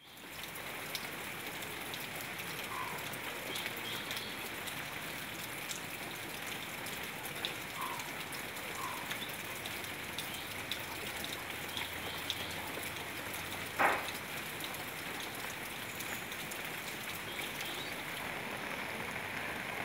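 Steady hiss of light rain falling on open lake water. A few faint, short high chirps sound here and there, and one sharp knock comes about fourteen seconds in.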